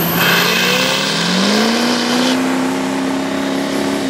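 Diesel mega mud truck engines at full throttle under heavy load in a tug of war, revving up over about the first two seconds and then held steady at high revs. The huge mud tyres are spinning on the wet slab.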